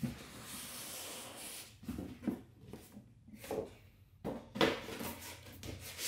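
Cardboard boxes being slid and handled on a wooden tabletop: a rubbing scrape at first, then several short, soft knocks as the packaging is moved.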